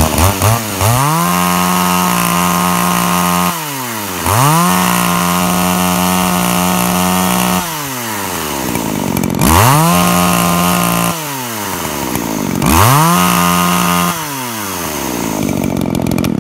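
Poulan 2150 two-stroke chainsaw revved four times at full throttle without cutting. Each time it climbs quickly to a steady high pitch, holds it for one to three seconds, then drops back toward idle. The running chain is throwing bar oil off the 20-inch bar to show how much the modified oil pump delivers.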